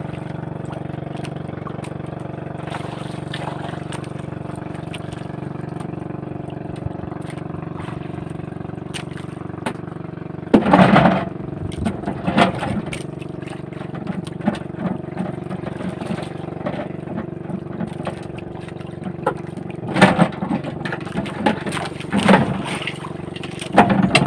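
A fishing boat's engine drones steadily underway. Several short, louder bursts of noise break in over it about halfway through and again near the end.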